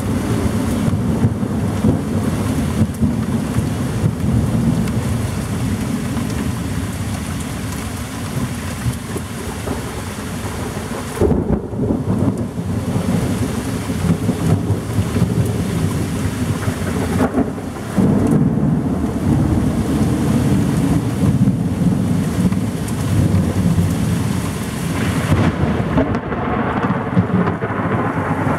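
Thunderstorm: steady heavy rain with a continuous low rumble of thunder that swells and eases several times.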